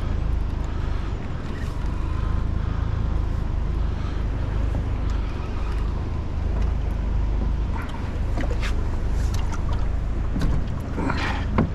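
Boat outboard motor idling steadily in neutral, a continuous low rumble. A few knocks and clatters, as of gear against the aluminium boat, come near the end.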